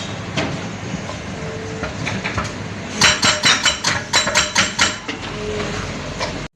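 Excavator at work, its engine running steadily, with a quick run of metallic clanks and rattles, about six a second, for roughly two seconds midway.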